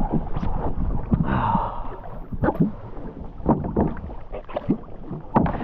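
Water splashing and slapping against an inflatable boat, with irregular knocks and hard breathing as a diver in fins climbs back aboard.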